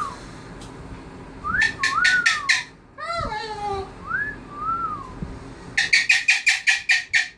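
African grey parrot whistling: several short whistles that rise and fall in pitch, with a run of rapid clicks about two seconds in and a longer run of about ten quick clicks near the end.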